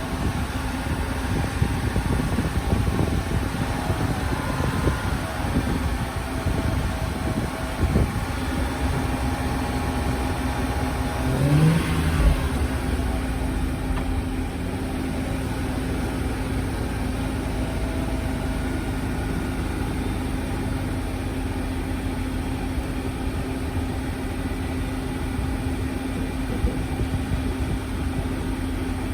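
Car engine running during a jump start, with a brief rise in revs about twelve seconds in, then a steady idle drone.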